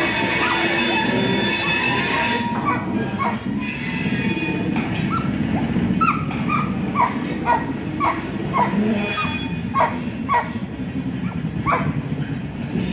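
A dog barking again and again in short yaps, about two or three a second, from about three seconds in. At first a passing train's steady high wheel squeal is heard, fading out over the first couple of seconds, with a low rumble under it throughout.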